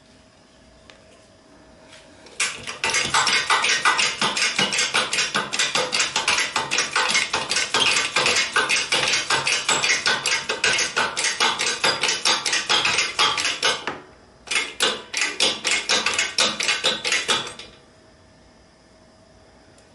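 Rapid metal-on-metal hammer blows, several a second, driving an electric motor's rotor shaft out through its cast end shield, where the bearing is seized. The blows come in one long run, break off briefly, then go on in a shorter run.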